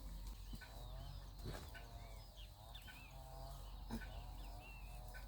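Free-range chickens clucking faintly, a string of soft, wavering calls, with a few short higher chirps mixed in.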